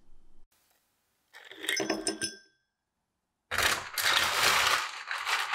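Ice cubes dropped into an empty tall drinking glass, clinking against the glass and making it ring. A short clatter comes first, then a longer, louder clatter of ice a little over a second later.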